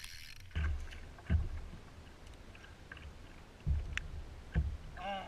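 Choppy water slapping against a kayak's hull, several dull thumps at uneven intervals, with a sharp click about four seconds in.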